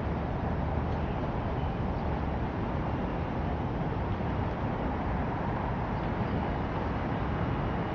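Steady city background noise: a continuous low rumble of traffic and street sound with no distinct events.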